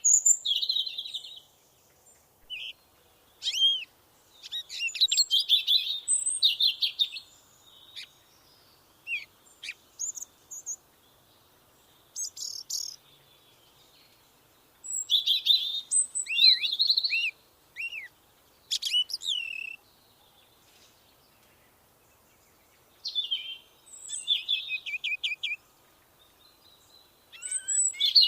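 A songbird singing a varied song: bursts of chirps, quick trills and short arching whistled notes, each phrase lasting one to three seconds with pauses of a second or two between them.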